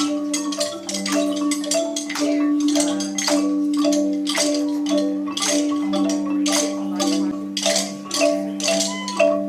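Background music: a mallet-percussion melody like a marimba, playing a short repeating figure over held low notes and a steady beat.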